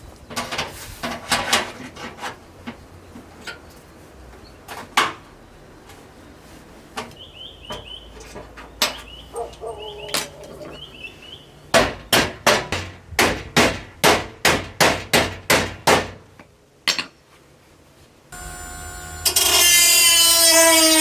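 Sheet-metal car body work: a hammer knocking on metal, first in scattered blows, then a steady run of about a dozen even strikes, roughly three a second. Near the end a power tool starts running loudly.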